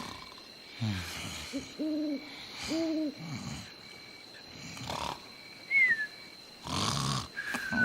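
Cartoon snoring sound effects: several noisy breaths, the loudest with a short falling whistle, and two hooting tones about two and three seconds in.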